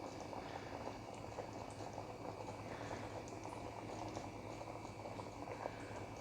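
Chicken korma gravy bubbling and popping as it simmers in the pan, over a low steady hum.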